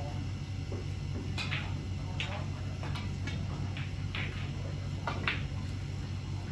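Snooker cue and balls clicking: several sharp knocks at irregular spacing, some in quick pairs like a cue tip striking the cue ball and the cue ball then hitting an object ball. A steady low hum runs underneath.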